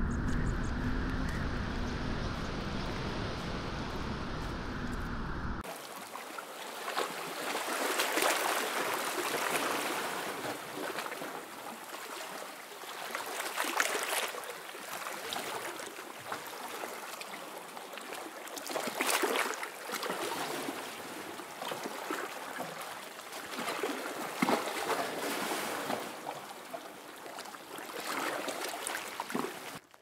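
Small waves washing in on a sandy beach, the rush of water swelling and fading about every five seconds. Before that, for the first few seconds, a different low, steady sound plays and then cuts off suddenly.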